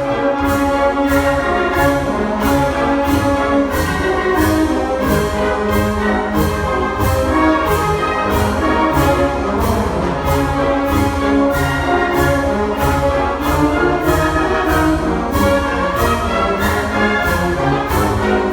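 Wind band playing a full-ensemble passage, with a steady percussion beat about twice a second under sustained brass and woodwind chords.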